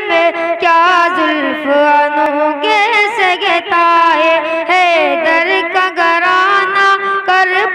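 A boy's solo voice singing a manqabat, an Urdu devotional poem in praise of Imam Husain, through a microphone, in long held notes with wavering, sliding ornaments and no instrumental accompaniment.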